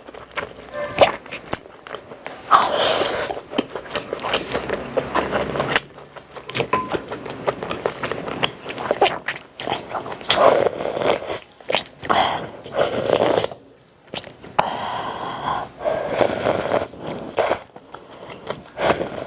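A person eating close to the microphone: chewing and mouth noises in irregular bursts with short pauses between them.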